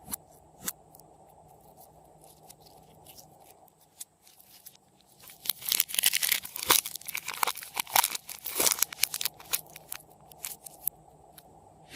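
Slime being squeezed and stretched by hand, giving a few scattered clicks, then a dense run of crackling pops and clicks starting about five seconds in and thinning out after about four seconds.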